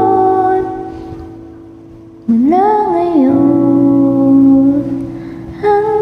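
Karaoke song: a woman sings long held wordless notes over a soft backing track. One note slides up in pitch about two seconds in and is held, then fades, and another begins near the end.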